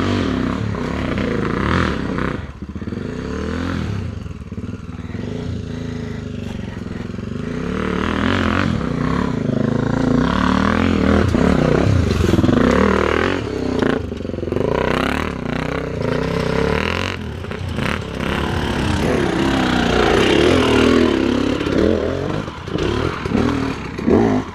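Off-road motorcycle engine revving up and down repeatedly as it climbs, with some clattering and scraping. The engine is loudest in two long surges, in the middle and towards the end.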